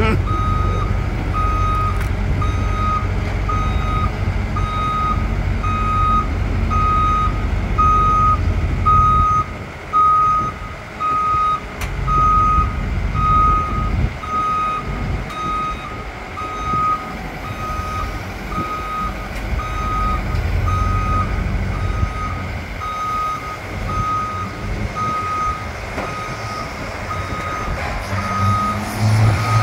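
Cat hydraulic excavator's travel alarm beeping steadily, about once a second, while the machine tracks onto a trailer, over the low rumble of its diesel engine. The rumble eases about ten seconds in.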